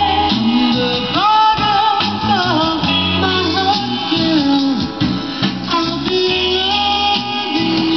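A soul record playing through a vintage console record player's speakers: a singer over guitar.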